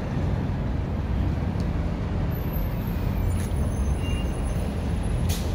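Steady low rumble of road traffic, with faint high squeaks in the second half and a short hiss near the end.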